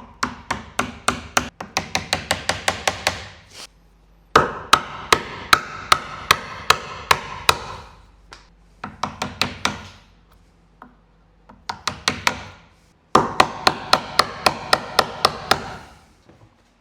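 Wood chisel struck again and again, about three or four blows a second in several runs with short pauses, chopping out waste wood from finger-joint recesses by hand.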